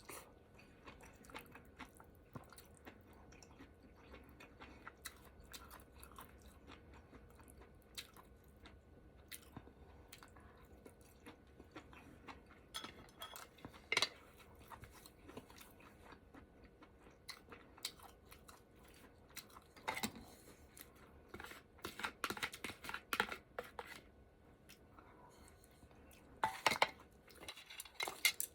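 Close-miked chewing of ramen hotpot: soft mouth sounds and crunching, with scattered sharp clicks and smacks that come in louder clusters in the second half.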